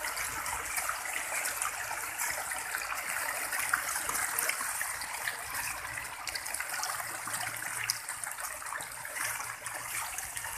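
A dense mass of catfish thrashing and splashing at the water surface in a feeding frenzy, a continuous churning splash made of many small sharp splashes.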